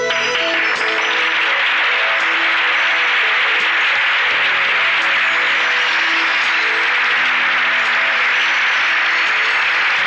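Studio audience applauding steadily, with band music playing underneath.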